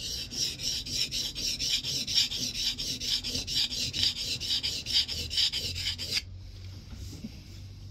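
A cambered scrub plane iron being honed: the steel blade is rubbed rapidly back and forth on the fine side of a double-sided Norton oilstone, about five strokes a second. The scraping stops abruptly about six seconds in.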